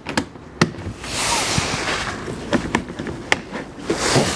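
A few sharp plastic clicks, then a rough, crackling rustle with scattered clicks: plastic bumper trim and push clips being pried and worked loose.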